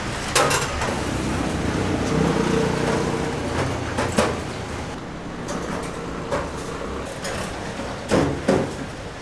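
Steady street traffic noise with a few sharp metal clicks of tongs against wire cooling racks: one about half a second in, one around four seconds, and two close together near the end.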